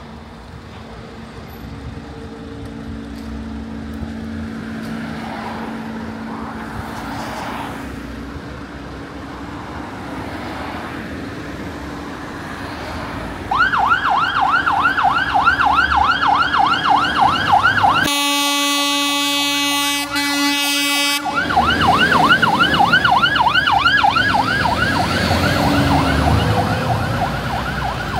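Scania P400 heavy fire truck's emergency siren: a low engine and traffic rumble, then about halfway through the siren starts loud with a fast rising-and-falling wail, about three sweeps a second. A few seconds later the wail gives way to a steady horn blast of about three seconds, then the wail resumes.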